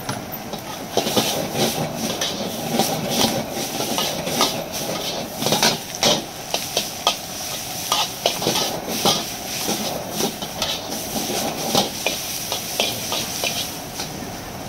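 Metal wok spatula scraping and clanking against a wok as noodles are stir-fried, in irregular strokes several a second that start about a second in and stop near the end. Under them run the steady roar of a gas wok burner and the hiss of frying.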